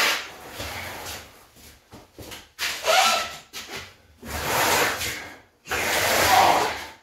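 Several bursts of rubbing and scraping handling noise, each about a second long with short quiet gaps between them.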